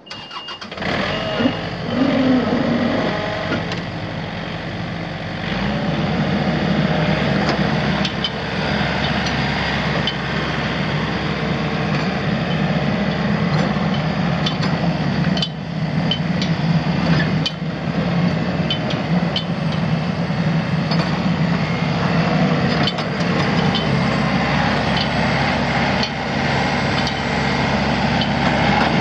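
The Yanmar 3MTDA 1.9-litre three-cylinder diesel of a John Deere 1600T mower starts just after a short warning beep, in the first second. It speeds up about five seconds in and runs steadily at the higher speed, with a few brief knocks.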